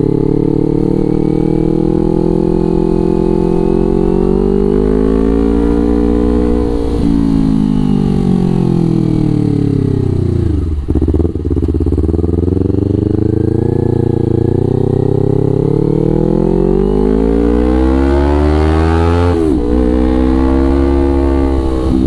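Kawasaki Ninja 250 FI parallel-twin running through a Villan New ZX1 aftermarket exhaust under way. The pitch climbs under throttle, eases off and falls, then cuts briefly about halfway. It climbs again and drops suddenly near the end with a gear change.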